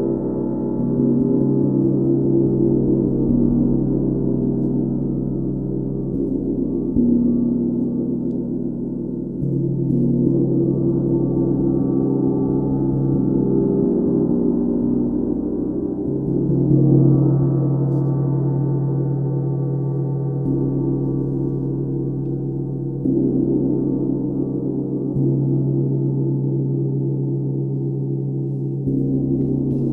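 A 32-inch UFIP brass symphonic tam-tam sounding a dense, steady wash of many overlapping tones, struck softly with a felt mallet. Fresh soft strokes come about every six to seven seconds and lift the level again.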